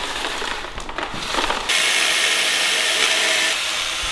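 A cable reel whirs and rattles as it is unwound. About one and a half seconds in, an angle grinder starts cutting into the rusted, seized exhaust bolts under the car, a loud steady grinding of steel.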